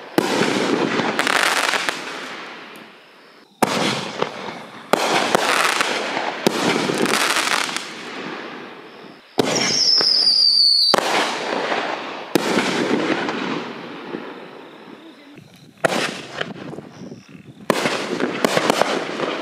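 Aerial canister firework shells (7-inch triple-break shells) bursting in the sky: a run of about eight sharp booms, each trailing off over a second or two. A falling whistle runs about nine to eleven seconds in.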